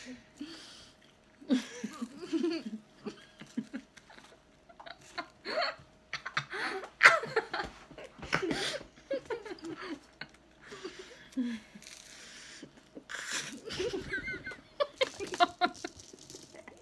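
Two young women laughing and giggling in fits and bursts, with mouths full of dry saltine crackers.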